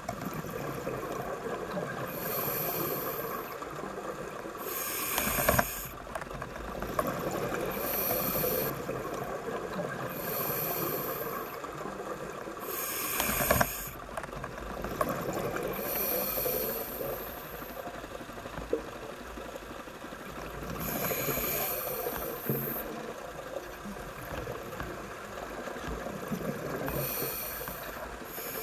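Scuba diver breathing through a regulator underwater: a hissing inhale and a rush of exhaled bubbles every few seconds, over a steady hiss.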